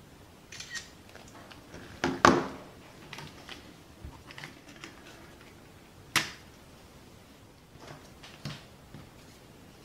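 Scattered clicks and knocks of a plastic toy casing and its parts being handled on a workbench, the sharpest about two seconds in and another about six seconds in.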